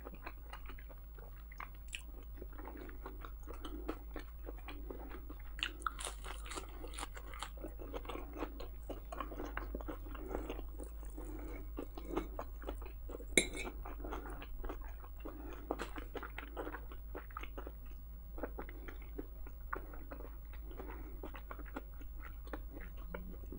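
A person chewing and biting food close to the microphone: many small, irregular wet clicks and smacks of the mouth, with one sharper click about halfway through.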